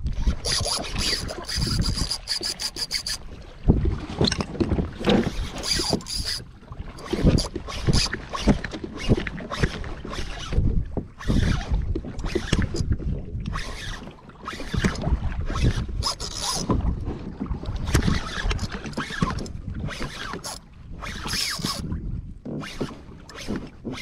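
A fishing reel's drag buzzes out line as a big fish runs, stopping about three seconds in. After that, water slaps and splashes against the kayak hull and wind buffets the microphone in irregular gusts.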